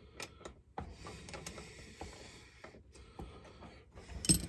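Handling noise from a Homelite Super XL-130 chainsaw powerhead being turned over in the hands: scattered light clicks and rustling, with one sharp knock near the end.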